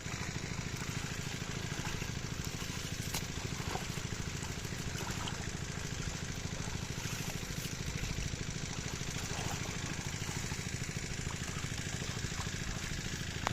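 Engine of a water pump running steadily, draining the pond.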